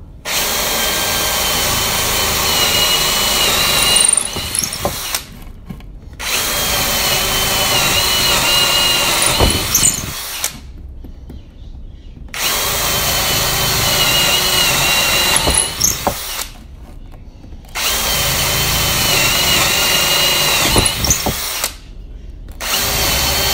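Einhell 18 V cordless brushless drill/driver boring holes into hard angico wood in drill mode: five runs of a few seconds each, with short pauses between them. The motor's whine wavers in pitch as the bit bites.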